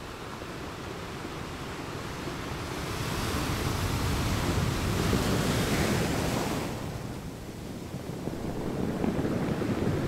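Ocean surf: a rushing wash of waves that swells to a peak, falls away, and builds again near the end.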